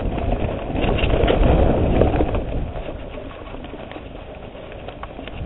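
Mountain bike riding a dirt trail, heard from the bike: wind rushing over the microphone, tyres rolling on dirt and the bike rattling, with scattered clicks. Louder for a second or so near the start, then easing off.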